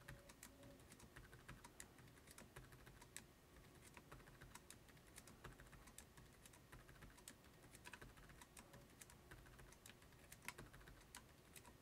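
Faint, irregular clicking of computer keyboard keys being tapped.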